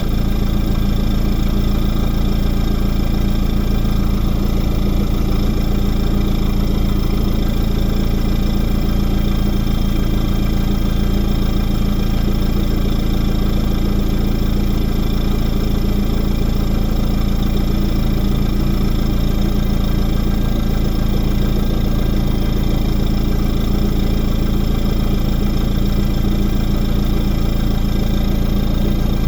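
Lada Vesta engine idling steadily at an even speed.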